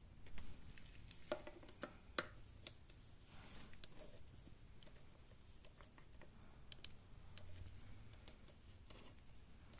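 Faint handling sounds: scattered small clicks and short rustles of hands moving among a motorcycle's engine-bay cables and parts.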